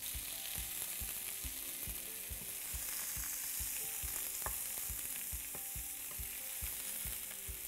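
Fennel wedges sizzling steadily as they fry in hot olive oil in a nonstick pan, with soft knocks and scrapes from a plastic slotted spatula turning them.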